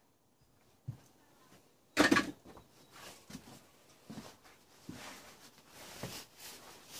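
A few knocks and clunks of something being handled, the loudest a sharp clunk about two seconds in, with softer knocks and rustling after it.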